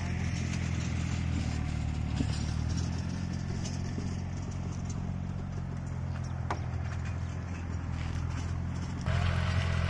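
An engine running steadily at a constant speed, a low even hum, with one sharp click partway through. About nine seconds in, the engine sound steps up suddenly louder.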